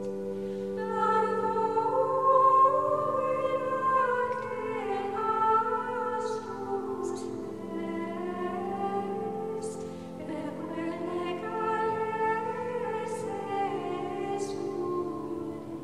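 Background music: a slow, wavering sung melody over long held chords.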